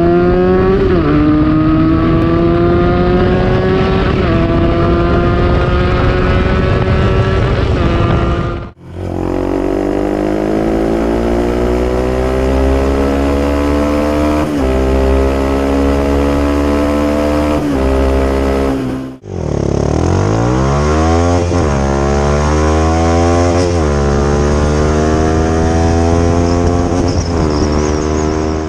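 Exhausts of small 300cc-class sport motorcycles, three clips in a row. In the first two the engine note climbs steadily through long pulls. In the last the engine is revved up and dropped back again and again, a rev every second or two.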